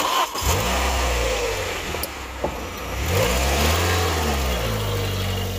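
A motor starts about half a second in and runs steadily with a low hum, its pitch dipping and rising again near the middle.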